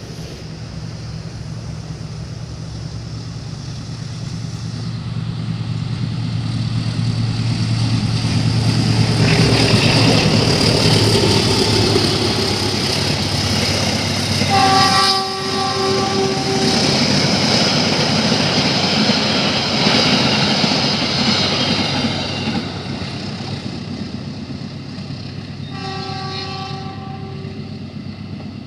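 A diesel-hauled train approaches and rushes past at speed, its locomotive engine drone building before the loud noise of wheels on rail. The horn blows twice, a longer blast about halfway through and a shorter one near the end, as the train noise fades away.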